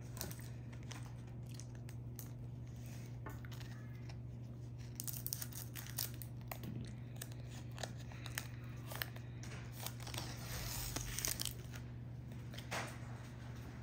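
A foil booster-pack wrapper being cut open with scissors and handled: sharp snips about five to six seconds in, then a burst of foil crinkling about ten seconds in as the pack is pulled open.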